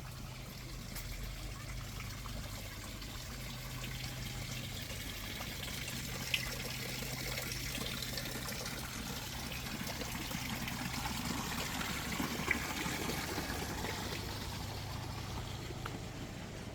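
Steady trickle of running water, with a faint low hum underneath.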